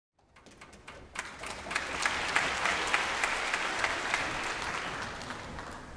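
Concert-hall audience applauding, swelling over the first couple of seconds and then dying away near the end.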